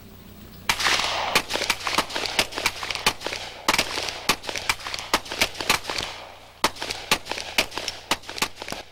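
Competition handgun shots: an irregular string of sharp reports with a short echo after each, starting about a second in. The loudest come near the start, about a third in and about two thirds in, with many smaller cracks between them.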